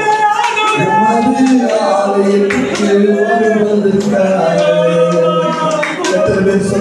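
A man singing a worship song into a microphone, holding long notes with little or no instrumental backing.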